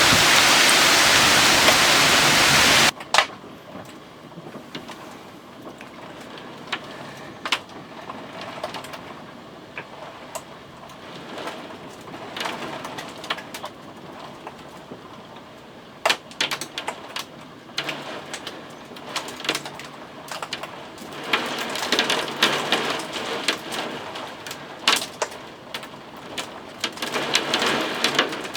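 Heavy downpour rushing loudly for about three seconds, then cutting off abruptly. It gives way to quieter steady rain with many sharp drops tapping close by, the tapping growing denser near the end.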